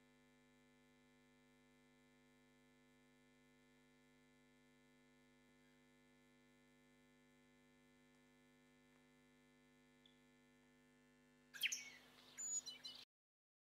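Faint steady electrical hum with many held tones, then about a second and a half of louder high chirping near the end that cuts off suddenly into silence.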